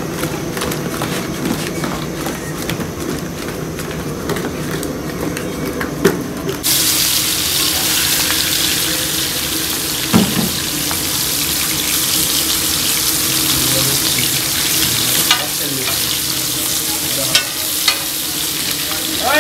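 Hilsa fish pieces and eggplant slices sizzling in hot oil on a large flat iron frying pan. The steady sizzle starts abruptly about seven seconds in. A few sharp clicks of a metal spatula against the pan follow.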